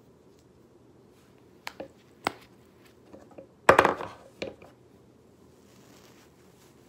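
Plastic lip balm sticks handled on a wooden tabletop: a few light clicks, then a short cluster of louder knocks and rattles a little after halfway, and one more knock just after.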